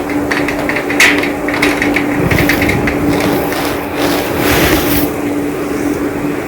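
Rain falling, with many close drops striking a hard surface in quick, irregular ticks and a steady low hum underneath.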